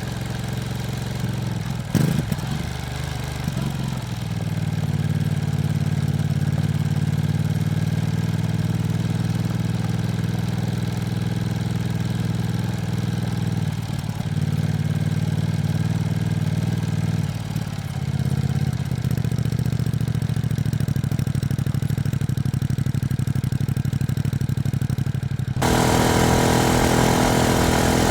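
Ducati Streetfighter V2S V-twin engine running at a low, steady speed, with a brief knock about two seconds in. Near the end the sound suddenly gets louder and harsher.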